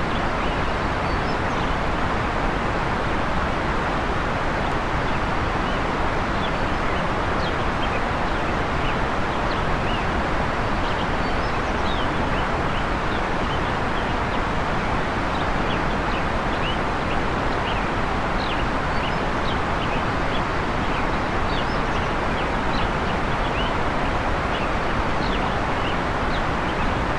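Waterfall rushing steadily, with many short bird chirps scattered over it throughout.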